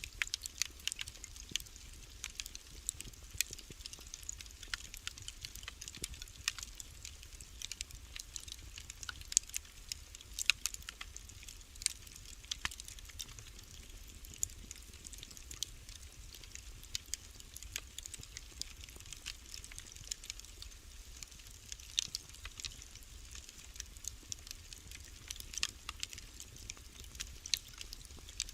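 Wood fire crackling in a fireplace: many irregular sharp pops and snaps over a low steady rumble.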